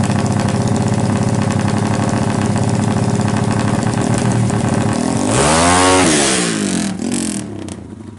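Honda Tiger single-cylinder four-stroke motorcycle engine, bored up to about 273 cc, running at a steady idle, then revved once about five seconds in, its pitch rising and falling back within about a second and a half. Near the end the engine sound drops away.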